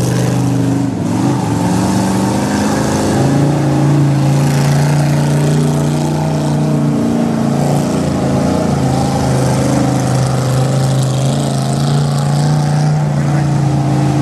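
Rock crawler buggy's engine revving hard and held at high revs as it spins doughnuts in a mud pit, its pitch rising and wavering in the first couple of seconds, then steady.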